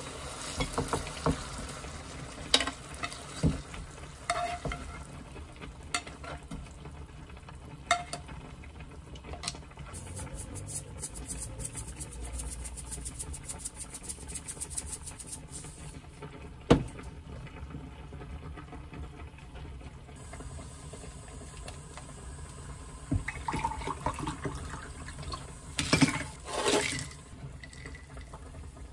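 Kitchen handling sounds: a spoon scraping and clinking in a frying pan as sauced LA galbi short ribs are slid onto a ceramic plate, then a shaker rattling quickly as sesame seeds are sprinkled over the meat. Near the end, a few bright clinks, as of ice in a glass.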